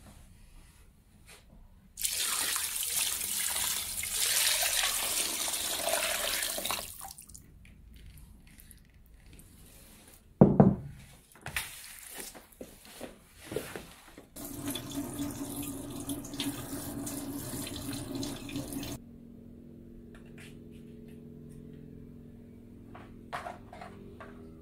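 Tap water running into a clay pot of chicken pieces for about five seconds. A heavy knock follows about ten seconds in as the water-filled pot is handled and set down, then a few smaller knocks and a steady low hum.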